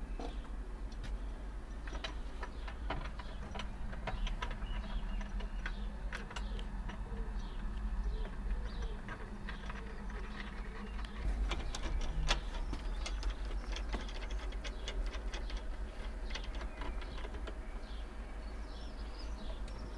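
Irregular light clicks and knocks of aluminium flood-barrier boards and their metal side-channel fittings being handled and fitted across a doorway, over a steady low rumble.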